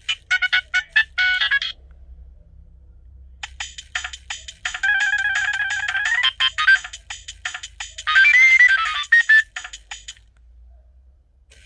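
Nokia 3510i mobile phone playing its polyphonic ringtones: one tune of rapid short notes ends about one and a half seconds in, and after a short pause another plays for about six seconds before stopping.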